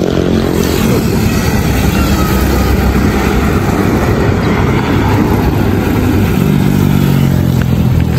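Road traffic: motorcycles and cars passing on a highway over a steady low rumble. An engine's hum is heard near the start and swells again toward the end.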